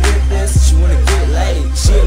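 Hip hop music: a heavy sustained bass, a sharp beat about every half second and a chopped, pitch-bending melodic line over it, with no rapped words in this stretch.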